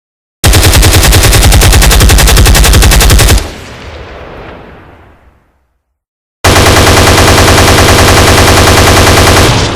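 Two long bursts of rapid automatic machine-gun fire, each about three seconds, separated by dead silence; the first rings out and fades for about two seconds after the shooting stops.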